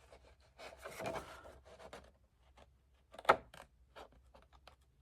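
Scored 12 by 12 paper being handled and cut: soft rubbing and scattered small clicks, with one sharp click about two-thirds of the way through.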